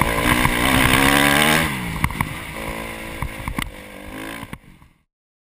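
Honda CRF 250 dirt bike's four-stroke single-cylinder engine revving under throttle, then dropping in pitch as the throttle closes about one and a half seconds in, with knocks and wind noise over it. The sound fades away and stops about five seconds in.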